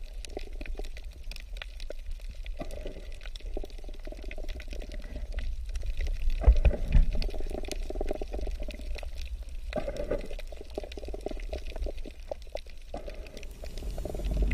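Underwater reef ambience picked up by the camera: muffled water movement and low rumble with a dense crackle of tiny clicks, swelling briefly a little past the middle.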